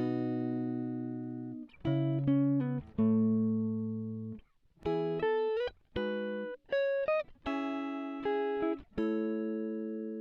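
Background music: a clean guitar playing slow chords and short runs of single notes, each ringing and fading, with brief gaps between phrases.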